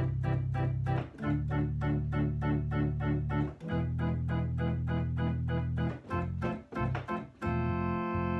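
Yamaha electronic home organ played with all its 8-foot tab voices drawn: sustained chords under a rhythmic, repeated upper line, the harmony changing about every two and a half seconds, with a few short detached chords near the end before a final held chord.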